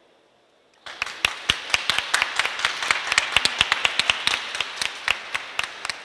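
Audience applause breaking out after a brief hush about a second in: a dense patter of hand claps with sharp single claps standing out close by.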